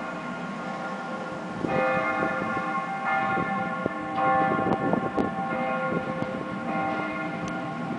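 Bells ringing with several steady tones, struck afresh about two seconds in and again about four seconds in. Beneath them is the low rumble of an approaching electric freight train, with a few knocks from its wheels in the second half.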